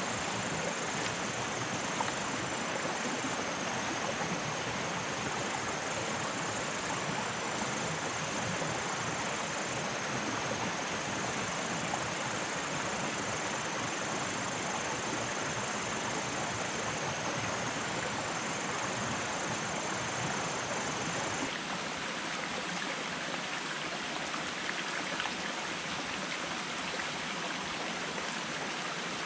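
Steady rushing and splashing of a shallow forest stream flowing over rocks. A thin, high, steady whine comes and goes over it for most of the time. About two-thirds of the way through, the water sound shifts slightly and loses its low rumble.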